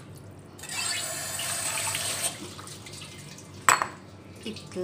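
Water running from a tap for a little under two seconds, then a single sharp knock about a second later.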